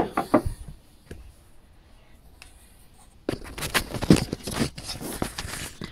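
Handling noise: a couple of clicks early on, then, from a little past halfway, a dense run of rustling, knocks and scrapes as tools and camera are moved about.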